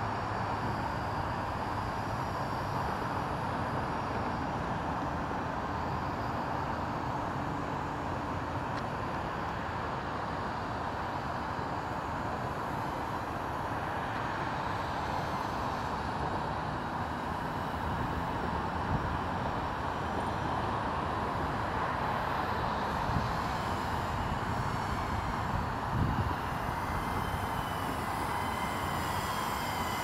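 Steady hum of a Skydio R1 quadcopter's propellers in flight, over a broad outdoor noise, with faint wavering whines higher up in the last few seconds.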